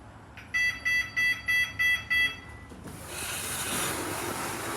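A lift's electronic beeper sounds six short, high beeps, about three a second. About a second later a steady rushing noise starts.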